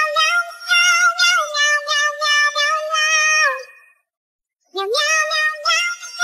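A song sung in meows: a high voice holds long, steady meow notes that step from pitch to pitch. It stops for under a second about four seconds in, then starts again with a rising note.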